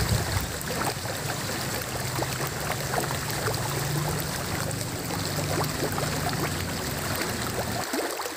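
Flowing water of a small stream, a steady rush with many small trickling ticks.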